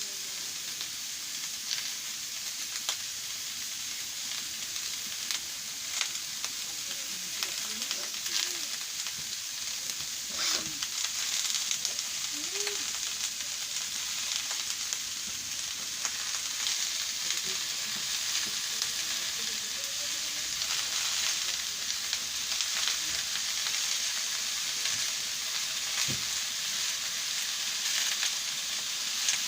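Food frying and sizzling steadily in a pan, with scattered sharp clicks from stirring.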